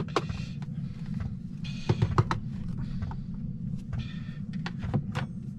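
Clip-lock plastic food container being opened by hand: a few sharp plastic clicks, three close together about two seconds in, as the lid's snap-clips are unlatched and the lid is lifted off. A steady low hum runs underneath.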